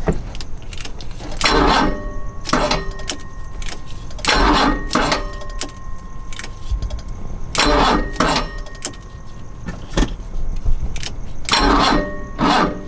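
Starter of a 1986 BMW 635CSi turning over its straight-six in about five short bursts without the engine firing, as the ignition switch is worked with a screwdriver. The cranking is weak from too little battery power supplied through jumper cables.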